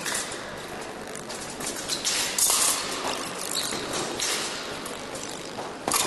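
Épée fencers' footwork on the piste: shoes tapping and stamping in quick, uneven steps, with a sudden thud near the end as one fencer goes down during the touch.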